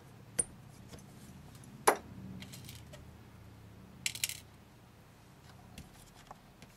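Sharp metallic clicks from a hand push-pin tool driving track pins through model railway track into cork underlay, a light click then a louder one about two seconds in, followed by a brief clatter of small clicks around four seconds in.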